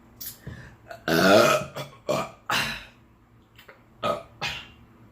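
A person burping: one loud, drawn-out burp about a second in, followed by four shorter bursts of sound.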